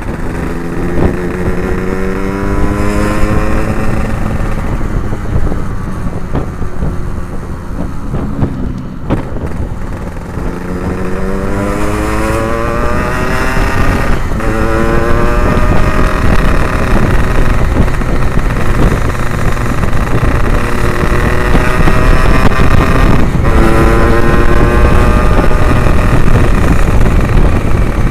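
Yamaha RX-King's 135cc two-stroke single through an Abbox C20 aftermarket exhaust, accelerating under way. The engine pitch climbs and drops sharply three times as the rider changes up through the gears.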